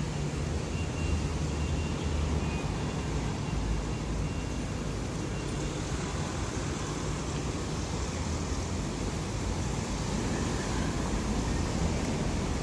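Steady city-street traffic noise: cars and taxis running along the road close by, with a constant low engine rumble.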